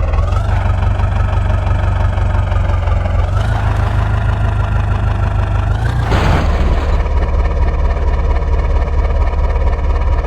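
Heavy diesel engine running steadily under load, with a higher whine that shifts pitch a few times. A short rushing burst comes about six seconds in.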